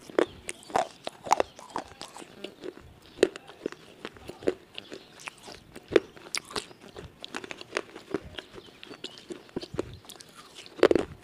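Close-miked chewing of crispy fried chicken: irregular crunches and crackles of the coating between the teeth, with a louder crunch near the end.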